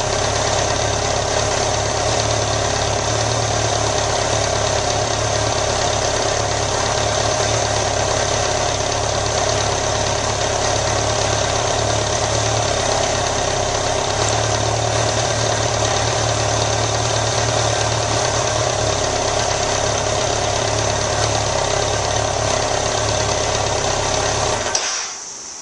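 2001 BMW K1200RS inline-four engine idling steadily at about 1,000 rpm; the sound stops abruptly near the end.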